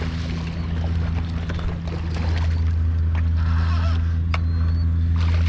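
Boat motor running steadily with a low hum, with water washing and a few light knocks on the boat.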